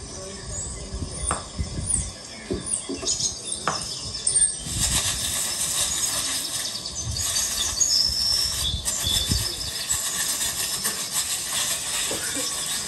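Plastic floor sheeting rustling and scraping under a dancer's body as he slides and turns on it, with a few sharp knocks in the first few seconds. The rustle grows denser about halfway through as he rises into a headstand.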